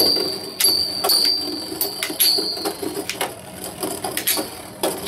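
Two Beyblade spinning tops, Hell Kronos G and Blaze Liger G, clashing as they spin in a plastic stadium: repeated sharp metal clinks, about two a second, several followed by a brief high ringing, over a steady whirr of the tops spinning on the plastic floor.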